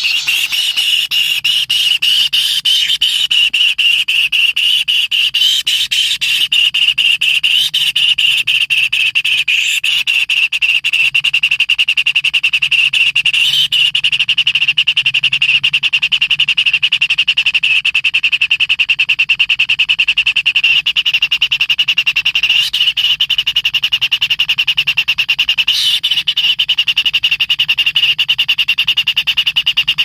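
Kingfisher nestlings begging for food: a continuous, rapid buzzing chatter of calls.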